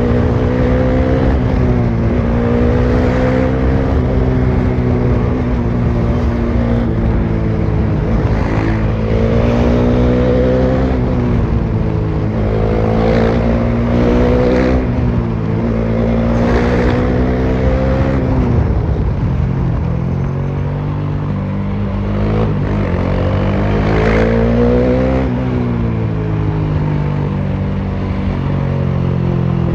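Bajaj Dominar 400's single-cylinder engine running with no muffler, heard onboard from the bike: a raw, loud exhaust note whose pitch climbs and then falls again several times as the throttle is worked.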